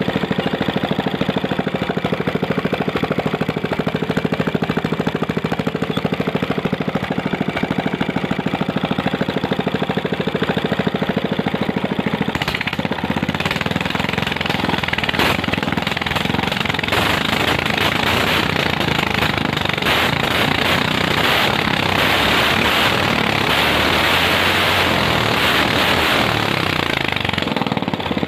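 Small single-cylinder Ryu petrol engine idling steadily while its carburettor is being adjusted. About twelve seconds in it speeds up to a faster, harsher run that lasts about fifteen seconds, then drops back to idle near the end.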